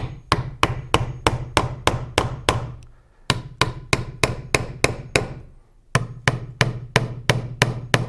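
Claw hammer driving 1¼-inch finish nails through a wooden board into the edge of another: three quick runs of strikes, about three a second, with short pauses between runs.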